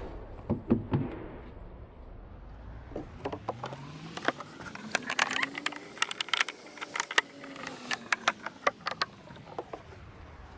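Drain hose and its barbed plastic fitting being handled and worked into place: a run of light clicks and knocks, thickest in the middle, over a faint background hum whose pitch slowly rises and then falls.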